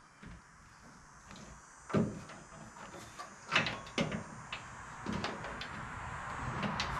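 A few sharp knocks and clunks of parts and hand tools being handled during work on a car's radiator and fan, the loudest about two seconds in and again a second and a half later, over a faint steady noise that grows slightly toward the end.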